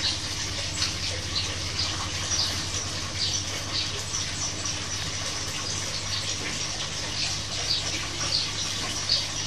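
Small birds chirping in short, scattered high notes over a steady low electrical hum.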